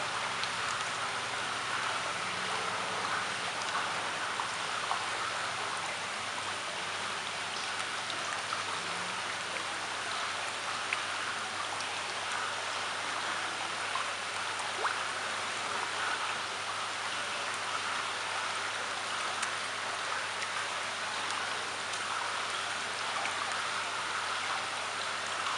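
Steady pattering and trickling of water on a koi pond's surface, with scattered small drips and plops.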